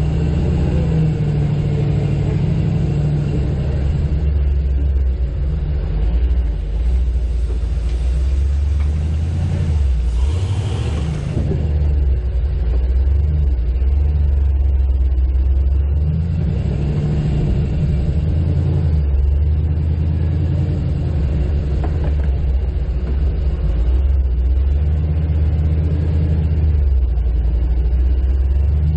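Off-road vehicle's engine running at low speed, its rumble swelling and easing as the throttle changes; a brief rushing hiss about ten seconds in.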